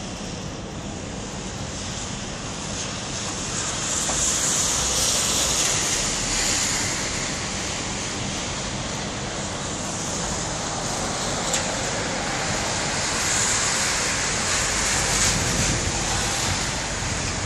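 Cars driving past on a wet, slushy street, the hiss of tyres on slush rising and falling as they go by. There is one swell about four seconds in and another near the end, when a white Audi A5 coupé passes close.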